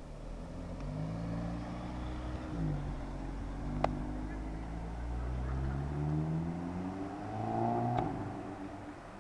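Audi TTS's turbocharged four-cylinder engine accelerating away: the pitch climbs, drops once at an upshift about two and a half seconds in, then climbs again before fading near the end. A sharp click about four seconds in.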